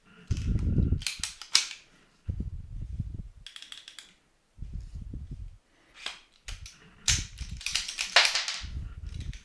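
An AR-style rifle's action worked by hand: sharp metallic clacks and snaps of the charging handle and bolt carrier moving and slamming, with dull handling thuds in between. The bolt-override (brass over bolt) jam is being set up and cleared.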